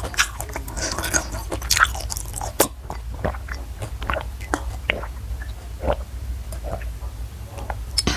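Close-miked mouth sounds of eating crunchy food: rapid crackly crunching for the first couple of seconds, then slower, separate crunches as the chewing goes on.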